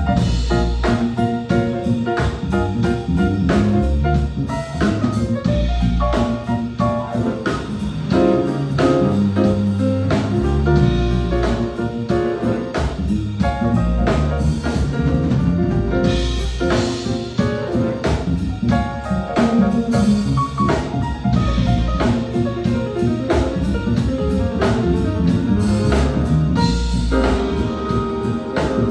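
A live band playing a jazzy groove at a sound check, with drum kit, a strong bass line and chords on top.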